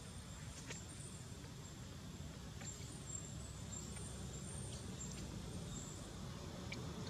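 Faint outdoor ambience: a steady low rumble with thin, high chirps coming and going, and a few soft clicks.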